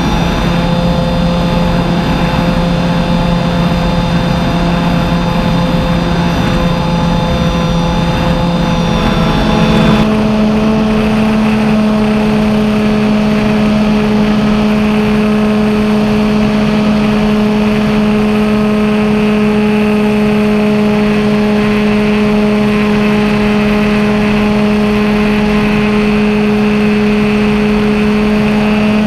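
BigStick RC model plane's motor and propeller running steadily in flight, heard from on board; about ten seconds in the pitch steps up and then holds at the higher speed.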